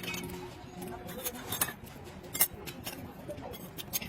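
Light metallic clinks and taps of hand tools and metal parts being handled, about half a dozen sharp strikes, the loudest about two and a half seconds in.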